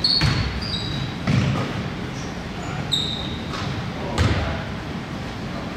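A basketball bouncing on a hardwood gym floor, about three thumps at uneven intervals, echoing in a large hall, with a few brief high squeaks on the court.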